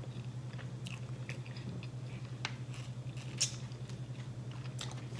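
A person chewing a mouthful of fried chicken-on-a-stick with the lips closed: soft wet clicks and light crunches, one sharper click about three and a half seconds in, over a steady low hum.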